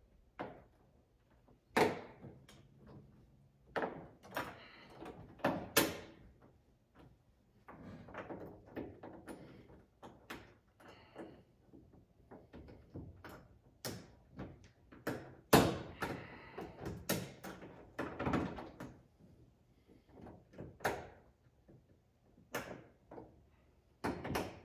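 Irregular knocks, clicks and taps of hand work at a UTV's rear roll-cage bar as a rear window panel and its mounting hardware are fitted, with one sharp knock about two-thirds of the way through.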